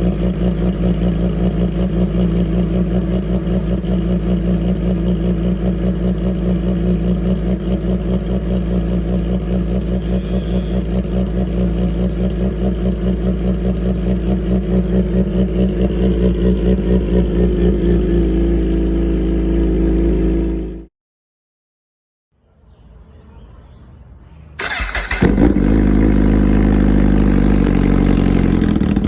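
Two Suzuki GSX-R sportbikes' inline-four engines on Racefit aftermarket exhausts, a GSX-R600 and a GSX-R1000R, each idling fast after a cold start. The first runs with a steady pulsing note until it cuts off suddenly about 21 seconds in. After a few quiet seconds the second comes in loud at about 25 seconds, its idle settling slightly.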